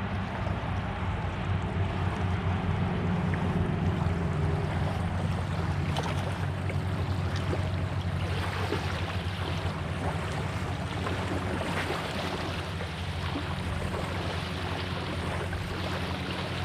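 Small waves lapping and splashing along a reservoir shoreline in a breeze, over a steady low hum.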